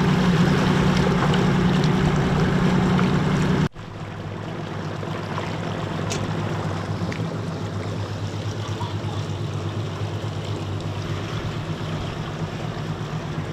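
Evinrude G2 outboard motor running steadily as the boat moves along, with water washing past the hull. About four seconds in the sound drops abruptly and carries on quieter.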